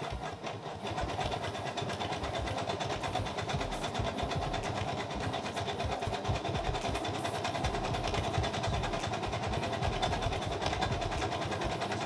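Sewing machine running steadily, stitching through two doubled hair wefts with a rapid, even needle rhythm that stops near the end.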